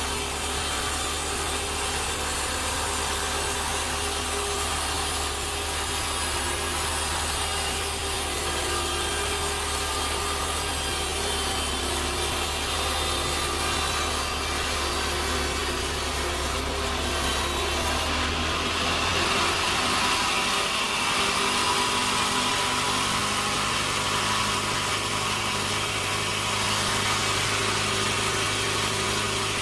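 Sawmill saw running and cutting through a log, a steady, continuous machine whine with the rasp of the blade in the wood. About two-thirds of the way through the low hum shifts and the higher cutting sound grows stronger.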